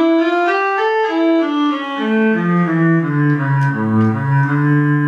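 Travel Sax 2 electronic wind instrument played on its violin sound preset: a melody of held, bowed-string-like notes that steps downward into a low register about two seconds in.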